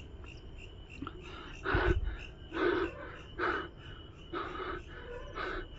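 A man's heavy, rapid panting, one hoarse breath a little under every second. A steady insect trill, likely crickets, runs beneath.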